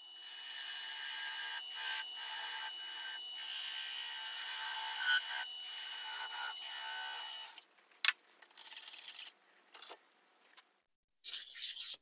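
Sandpaper rubbing on a small alligator juniper weed pot spinning on a wood lathe: a steady hiss with a thin steady high squeal through it, which fits the cup live center's failed, overheating bearing. The sanding stops about seven and a half seconds in, and a few light clicks and handling rustles follow.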